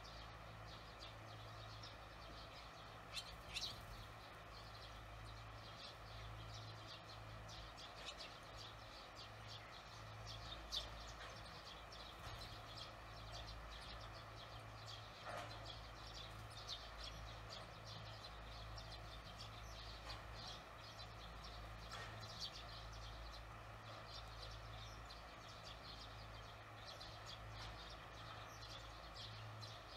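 Barn swallows giving faint, scattered short chirps, a few louder ones now and then, over a steady low hum.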